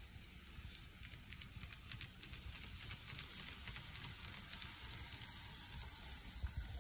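N-gauge model of a 225 series electric train running on its track, a faint crackling of many small, quick clicks over a low rumble.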